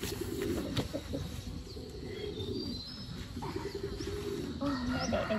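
Domestic hens clucking and crooning low around straw-lined nest holes, with small birds chirping high above.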